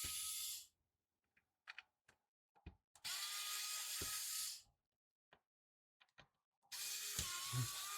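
Electric screwdriver running in short bursts of about a second and a half, its motor whine rising as it spins up, driving the case screws of a small Bluetooth speaker. The first burst stops just under a second in, and the others start about three and about seven seconds in. Small clicks and taps come between the bursts.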